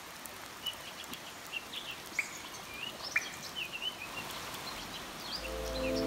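Small birds chirping in short, repeated calls over a steady wash of running water. Music fades in about five seconds in.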